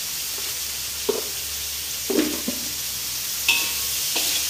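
Onions, shallots and salted fish sizzling in hot oil in a wok, with a spatula stirring and scraping through them in a few separate strokes; the last stroke near the end rings briefly against the metal.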